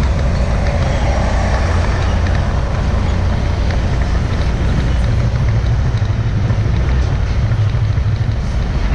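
Concrete mixer truck's diesel engine idling with a steady low rumble while it stands still, and heavy trucks pass close by in the next lane, the rumble swelling for a few seconds in the second half as one goes past.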